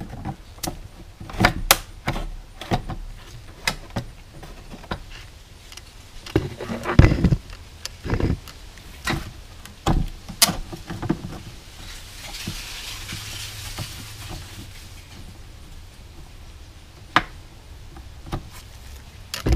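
Pliers and hands working around a small gas engine's fuel line: irregular clicks, taps and knocks of tool and fingers on metal and plastic parts. The loudest is a dull thump about seven seconds in, and a few seconds of soft rustling follow about twelve seconds in.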